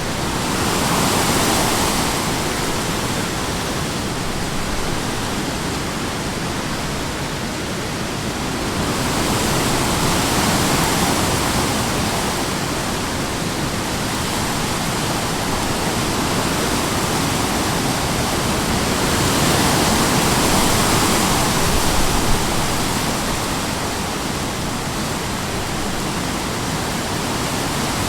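Strong wind rushing steadily, rising and easing in slow gusts about every ten seconds.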